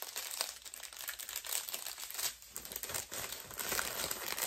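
Plastic packaging from a diamond-painting kit crinkling and rustling in irregular crackles as it is handled.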